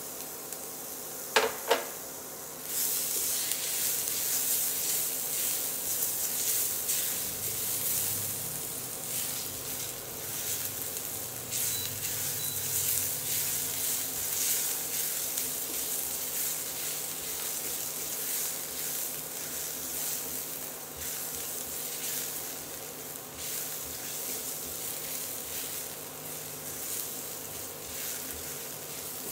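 Minced garlic sizzling in hot oil in a stainless steel pan, stirred and scraped with a silicone spatula. Two sharp clicks come about a second and a half in, and the sizzle swells about three seconds in and then holds steady.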